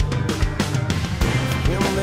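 Background rock music with a driving drum beat and guitar.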